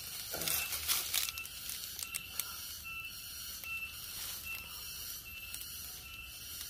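Dry palm-leaf ribs rustling and crackling as the grilled fish clamped in them is handled, loudest in a burst about half a second to a second in, over a steady hiss.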